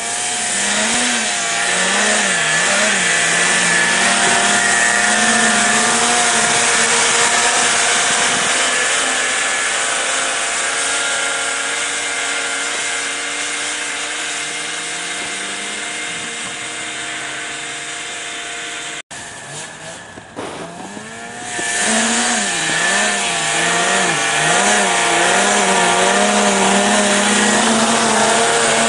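Ski-Doo MX Z snowmobile engine running hard, its pitch wavering up and down as the throttle is worked through wheelies. About two-thirds of the way through the sound cuts off abruptly, stays quieter for a couple of seconds, and then the engine revs back up.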